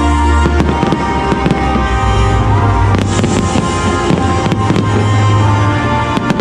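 Fireworks going off in a run of sharp bangs and crackles, over loud music playing with the show.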